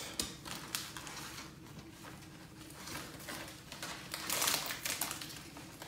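Hands handling small paper mini comics and cards in a cardboard box: scattered light clicks and rustles of paper, with a louder rustle a little past four seconds in.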